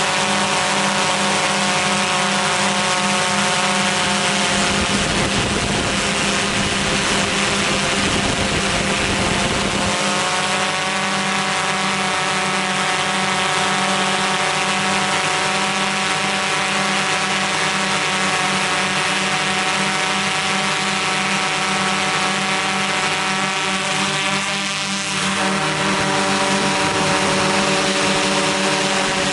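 Steady multi-pitched hum of a multicopter drone's electric motors and propellers in flight. A low rumble of wind on the microphone sets in for several seconds near the start, and the hum wavers briefly near the end.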